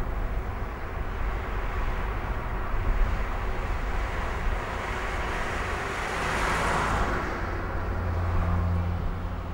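Outdoor traffic noise: a steady low rumble, with a vehicle passing by that swells loudest about six to seven seconds in and then fades.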